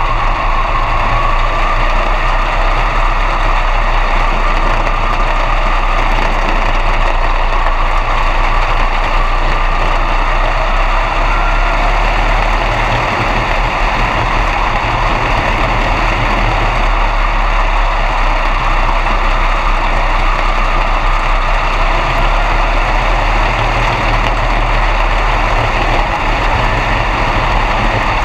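B-Mod dirt track car's engine running steadily at low speed or idle, heard from inside the cockpit, with no revving.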